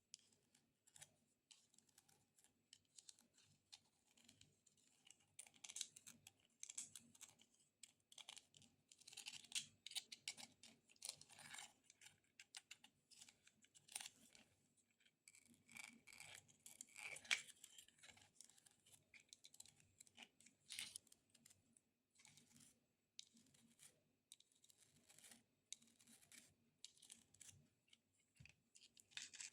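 Extra-long fingernails tapping and scratching on a decorative dragon egg: quick, irregular clicks mixed with short scratchy strokes, soft overall.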